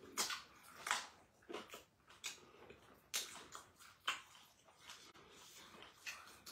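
Close-up eating sounds of people chewing and licking their fingers: short, irregular lip smacks about once a second.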